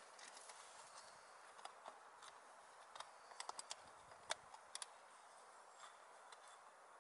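Faint handling noise: a quick run of small sharp clicks and taps about three to five seconds in, from a small clear plastic container being handled, over a quiet steady hiss.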